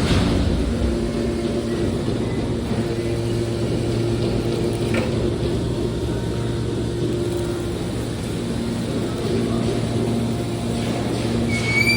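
Scrap metal car baler running: a steady mechanical hum from its power unit, with a sharp knock at the start and a fainter one about five seconds in.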